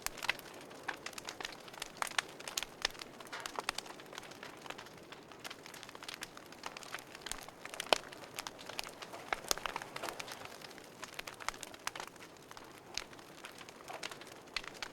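Wood campfire crackling, with irregular sharp pops and snaps over a low steady hiss; the loudest pop comes about eight seconds in.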